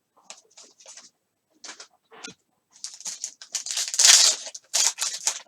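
Trading card pack and cards being handled: a run of short rustles and scrapes, busier and louder in the second half, the longest and loudest about four seconds in.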